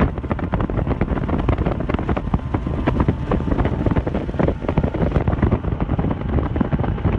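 Bass boat running across the lake, with heavy wind buffeting the microphone in rapid irregular gusts.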